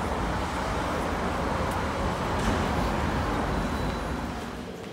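Steady rumble of city road traffic, easing off near the end.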